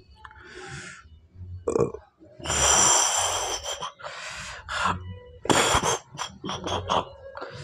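A man gasping and breathing hard: a long loud exhale about two and a half seconds in, then a string of shorter, sharp breaths.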